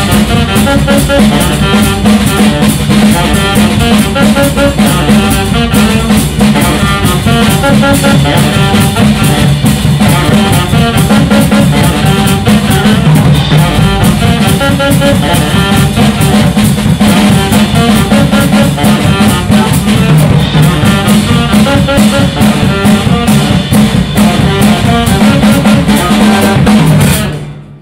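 Live jazz trio of saxophone, double bass and drum kit playing, which stops abruptly about a second before the end.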